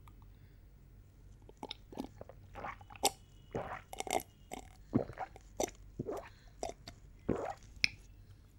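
A person gulping down a drink: a run of short wet swallowing sounds, about two to three a second, starting a second and a half in.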